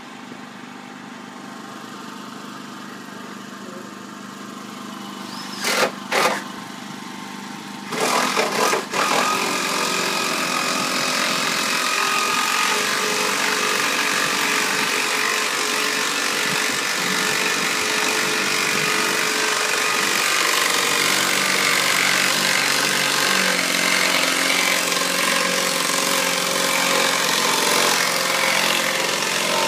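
An engine or motor running steadily, getting a little louder after about nine seconds. Loud sharp knocks come twice about six seconds in and again around eight to nine seconds in.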